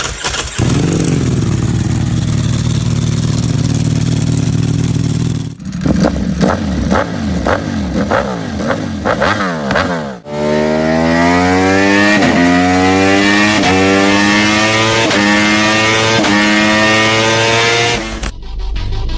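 Sport motorcycle exhausts in three cuts: first a steady running note, then from about five and a half seconds in a series of quick throttle blips, then from about ten seconds in an engine note that climbs in pitch again and again with short drops, as when accelerating up through the gears. The engine sound cuts off about a second before the end.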